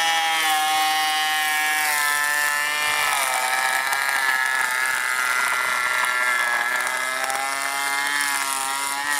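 POPOMAN TECCPO 18V cordless twin-blade planer, fitted with Bosch blades, planing a painted pine beam at a 1.5 mm depth of cut: a steady motor whine with the blades chipping the wood. The pitch drops about three seconds in as the cutting load bites and rises again near the end.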